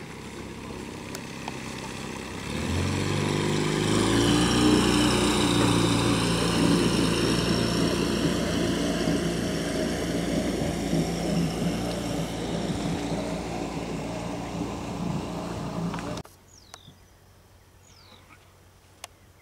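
Small outboard boat motor running: about three seconds in it picks up and rises in pitch, then runs loud and steady until it breaks off suddenly about three seconds before the end.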